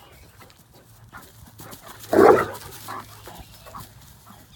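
A Great Dane gives one short bark about two seconds in, a play bark from a dog that is romping.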